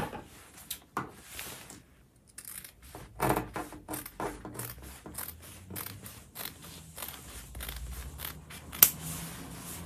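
Large fabric scissors snipping through folded fabric, a run of repeated short cuts about two or three a second that starts about two seconds in, with one sharper click near the end.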